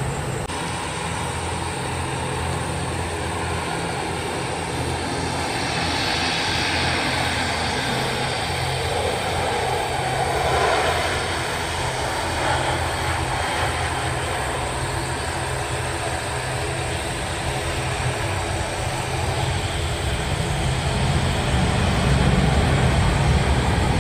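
Airliner engines at take-off power, a steady rumble with a low hum, swelling in the middle and growing louder near the end.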